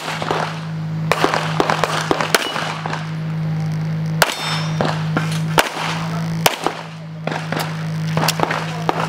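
Pistol shots fired at an unhurried, irregular pace, about a dozen sharp cracks with short gaps between them, over a steady low hum.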